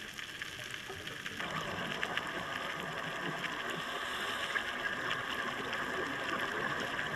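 Underwater sea ambience heard by a camera on a rocky reef: a steady hiss peppered with faint crackling clicks. About a second and a half in, a lower churning of water movement joins it.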